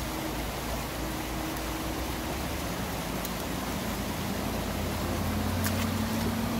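Steady rush of stream water running over a riffle, with a low hum that grows louder and rises slightly in pitch in the second half. A faint click near the end.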